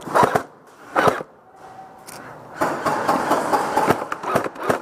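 Electric airsoft guns firing on full auto: a short burst at the start, another about a second in, then longer rapid fire from about two and a half seconds on.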